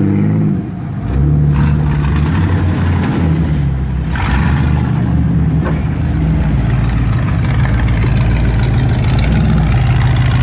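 Old Ford F-series pickup's engine revving and then easing off about half a second in. It then runs steadily at low speed with small throttle changes as the truck crawls over rocky ground.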